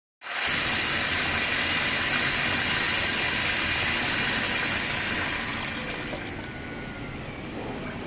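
Water from a sink tap gushing into the basin, the flow falling away to a weaker trickle about three-quarters of the way through as the motorized shut-off valve on the supply pipe closes.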